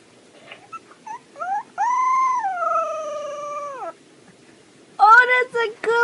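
Husky puppy howling: a short rising whimper, then one long, thin howl that slides slowly down in pitch and breaks off, and after a brief pause a quick run of short howling calls near the end.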